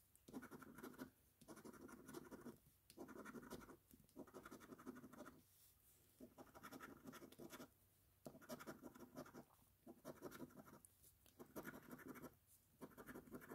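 A coin scratching the coating off a paper scratch-off lottery ticket: faint, repeated runs of scratching a second or so long, about nine of them with short pauses between, as one spot after another is uncovered.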